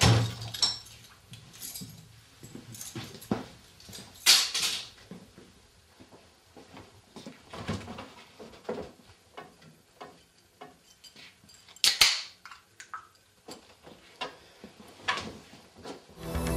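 Scattered household knocks and clicks as a man moves about a kitchen: footsteps and a refrigerator door being opened and shut, with small things clinking. The two loudest knocks come about four seconds in and again about twelve seconds in. Music comes in just at the end.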